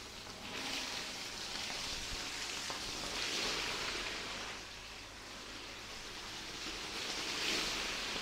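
Water gushing from a rug-cleaning wand onto a soaked wool rug and splashing on the tiled floor. It is a steady hiss that swells and eases as the wand is swept back and forth.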